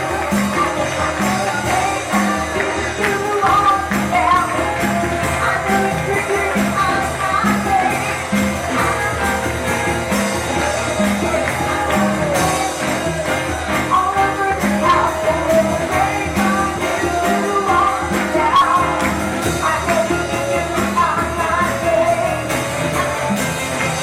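Lively church worship music: voices singing over a band with a steady beat of about two a second, and a tambourine shaking along.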